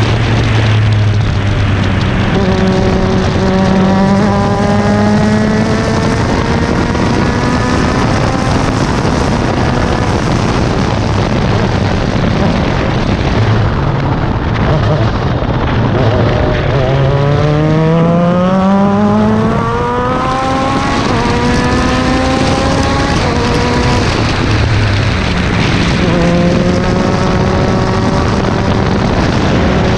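F3 open-wheel race car engine heard from the cockpit, accelerating with rising pitch and dropping back at each upshift. Around the middle it eases off for a corner, then pulls hard again through more upshifts, under a constant rush of wind noise.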